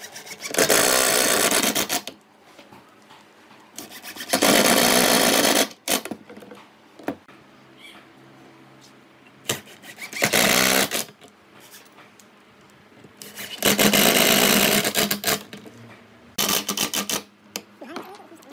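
Cordless drill run in five bursts of a second or so, driving screws into pine boards, with small clicks and knocks of handling in between.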